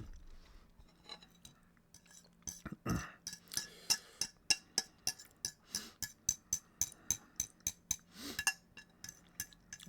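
Cutlery clinking against a dish: many quick, uneven, ringing strikes, starting about two and a half seconds in.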